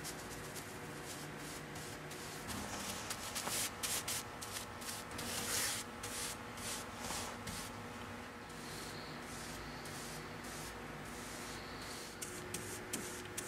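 A paintbrush stroking tung oil onto the coated canvas of a steamer trunk: faint, scratchy brushing strokes, busiest in the first half and dying away after about the middle.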